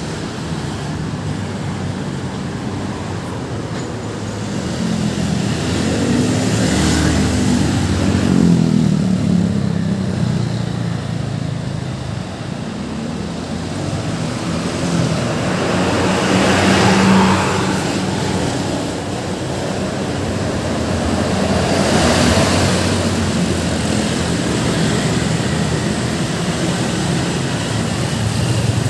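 Busy road traffic: a steady stream of vehicles passing, engines and tyres swelling as each one goes by, loudest about eight, seventeen and twenty-two seconds in.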